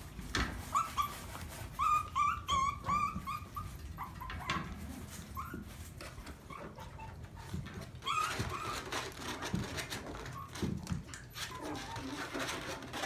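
Maltese puppies giving short, high yips and whimpers in quick clusters, about two seconds in and again around eight seconds. Scuffling clicks and knocks from the puppies moving about run between the calls.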